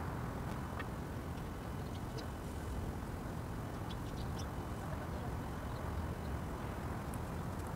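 Steady low outdoor rumble, like wind or distant traffic, with a few faint, short, high bird chirps scattered through it.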